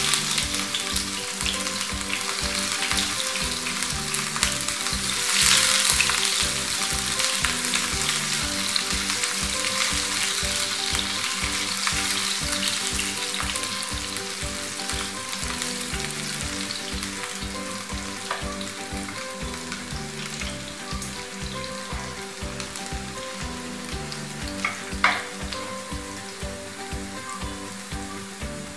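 Sliced onions sizzling as they fry in hot oil in a frying pan, stirred now and then with a spatula. The sizzle is loudest at the start and again about six seconds in, then slowly eases, with a single sharp tap near the end.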